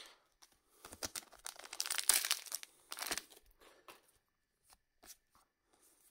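A Wixoss trading-card booster pack's wrapper being torn open and crinkled, a dense crackling that starts about a second in and dies away after about three seconds. A few light ticks of cards being handled follow.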